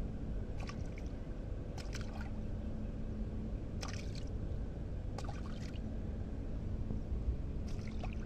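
Shallow salt-pan water splashing and sloshing in about five short bursts, spread a second or more apart, over a steady low rumble.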